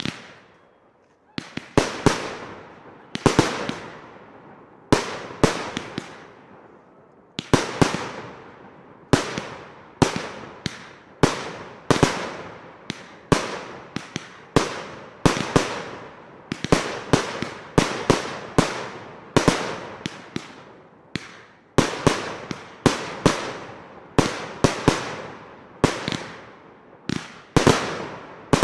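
Fireworks display: aerial firework shells bursting in a steady run, a sharp bang roughly every second, often in quick pairs or triples, each trailing off in a rolling echo.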